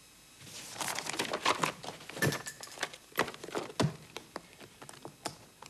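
Paper rustling and crinkling, with a few dull knocks, as papers are handled and gathered from a table. It starts about half a second in, is busiest for the next few seconds, then thins to scattered rustles.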